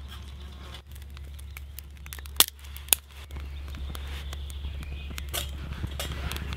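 Resinous spruce kindling catching fire in a small folding metal wood stove, crackling with many small snaps and two sharper pops about two and a half and three seconds in, the fire growing gradually louder.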